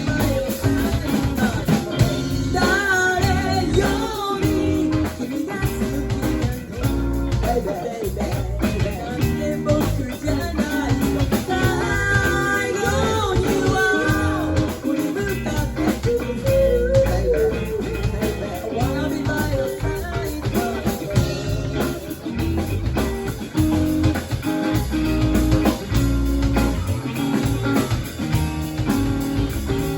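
A rock band playing live: electric guitar and drum kit over a steady bass groove, with a wavering lead melody line that comes and goes.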